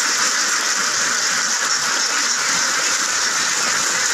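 A large flock of young domestic ducks quacking all together in a dense, steady din without a break.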